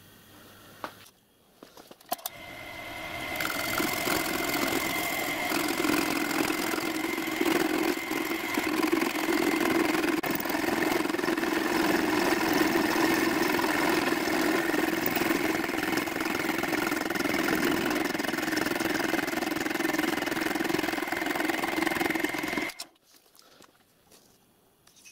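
Milling machine running and cutting a groove into a steel tram rail with an end mill, shown sped up four times: a loud, steady machining sound with a constant high tone. It starts about two seconds in and cuts off suddenly near the end.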